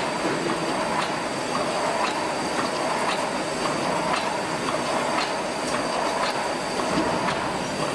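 A 2.4 m double-row wire mesh welding machine running: a steady mechanical clatter with a regular clack about twice a second as it works through its welding cycles.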